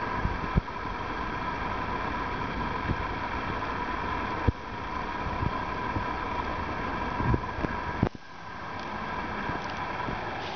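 Electric arc welding on an anchor screw: a steady sizzling hiss with a high whine and a few sharp snaps. About eight seconds in it cuts off abruptly, and a quieter hiss then comes back.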